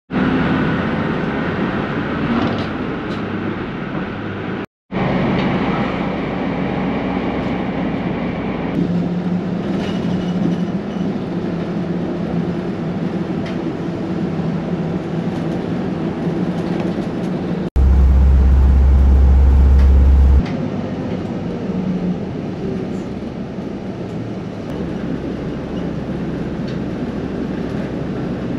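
Route bus on the move, heard from inside the cabin: a steady engine drone with road noise. A much louder, deep low rumble comes in for a couple of seconds about two thirds of the way through.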